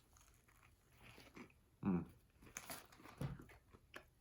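A person biting into and chewing a burger with crunchy onion rings and bacon: a few separate bites and crunches with mouth sounds.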